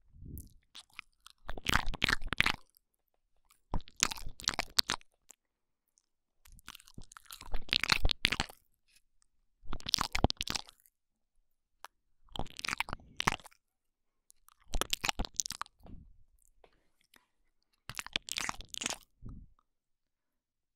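Intense close-miked ASMR ear-eating mouth sounds: wet, crackling mouth clicks made right against a binaural microphone's ear. They come in seven bursts of about a second each, roughly two seconds apart.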